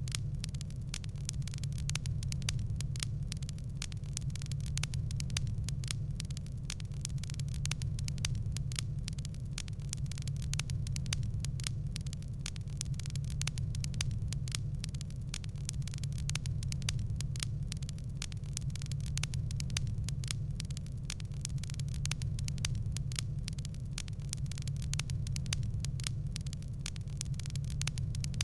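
Wood fire crackling: many small irregular pops and snaps over a steady low rumble of the flames.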